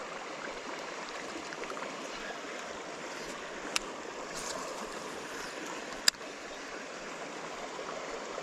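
Steady rush of flowing creek water, with two sharp clicks, one about four seconds in and a louder one about six seconds in.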